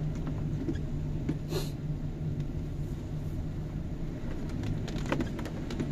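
A car's engine and its tyres on a wet road, heard from inside the cabin as a steady low rumble with a constant hum, with a few faint ticks.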